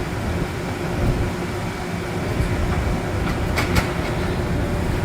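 Steady low machinery rumble with a faint constant hum, and two sharp clicks about three and a half seconds in.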